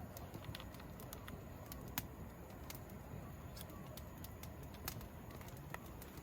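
Wood fire crackling, with irregular sharp pops and snaps over a low steady background; the loudest pop comes about two seconds in.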